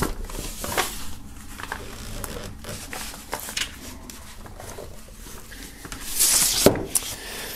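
Paper inner sleeve of a vinyl LP rustling and scraping as it is forced into a tight cardboard pocket, with small clicks of handling. About six seconds in comes a louder scraping rush, ending in a sharp knock.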